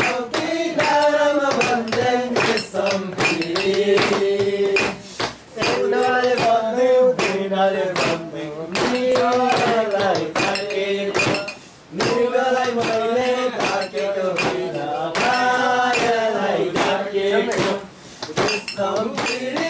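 Singing with a steady beat of clinking struck metal kept in time, with short breaks between phrases.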